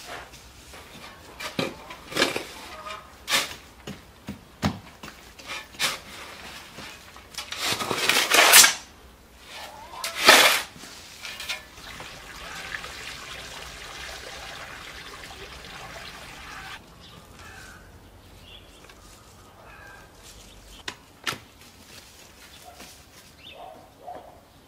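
Garden greens being picked by hand, a run of rustles and stem snaps with a couple of louder rustling bursts, then a steady pour of water from a watering can lasting about five seconds before it stops.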